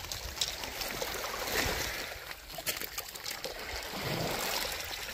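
Shallow sea water washing and trickling at the water's edge, an even noisy wash with a few faint clicks.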